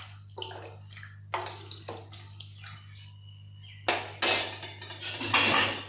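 Metal spoon stirring and scraping meat and masala in a cooking pot: a series of scrapes and clinks that grow louder and closer together near the end. A low steady hum runs underneath.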